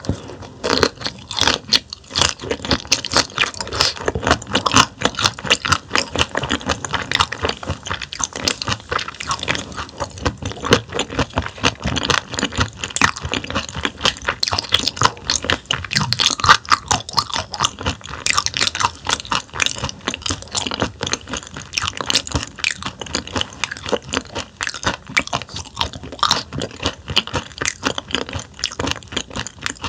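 Close-miked chewing of raw damselfish sashimi, a crisp, crackling crunch that goes on without a break as the fish's tough bones are bitten through.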